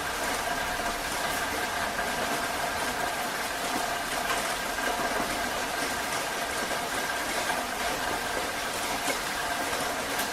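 Heavy rain falling in a steady, even hiss, with a faint steady hum running through it.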